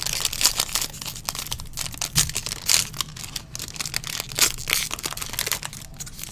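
Foil wrapper of a 2021 Inception baseball card pack crinkling and tearing as it is ripped open by hand, in a run of sharp, irregular crackles.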